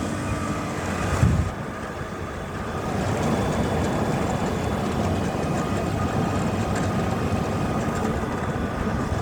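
1979 Mitsubishi heat-and-cool air conditioner running, its Bristol reciprocating compressor humming under the steady rush of the fan, the unit working normally and cooling. A brief bump about a second in.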